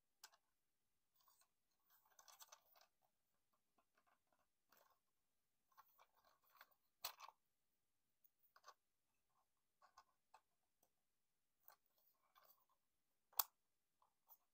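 Faint clicks and scrapes of plastic parts being moved on a Transformers Generations Optimus Prime figure during its change into truck mode, with two sharper snaps, about seven seconds in and near the end, the second the loudest.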